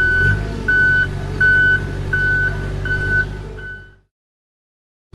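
A vehicle's reversing alarm beeping at an even pitch, about three beeps every two seconds, over a running engine. It cuts off suddenly about four seconds in, and the same beeping starts again just after the end.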